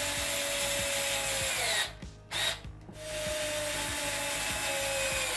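TOPSHAK TS-ESD1 4 V cordless screwdriver running as it drives a screw into wood, in two runs with a short pause and a brief blip between them. Its whine drops slightly in pitch near the end of each run.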